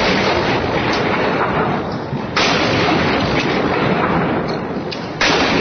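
Cannon-like salute shots, three blasts about two and a half seconds apart: the first has just gone off and is fading, the next comes about two and a half seconds in and the last near the end. Each starts suddenly and has a long fading tail.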